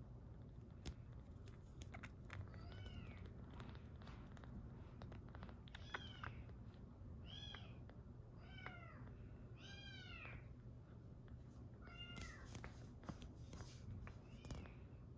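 Very young bottle-fed kitten giving about seven short, high squeaky mews, each rising then falling in pitch, while suckling at the bottle, with small wet clicks from the suckling between them.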